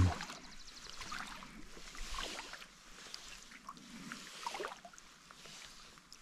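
Quiet paddle strokes in lake water beside a packraft, with dripping and light splashing that swell and fade every second or so while trolling.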